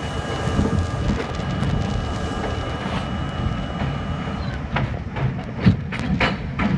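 R32 subway train running on elevated track, a steady rumble under a steady whine that stops about four and a half seconds in. After that comes a run of sharp, irregular clacks as the wheels cross rail joints.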